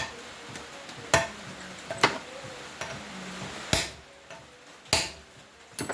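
Sharp metallic clicks and knocks, five of them at uneven intervals about a second apart, from a wrench working on a rusted, tight spark plug in a cast cylinder head.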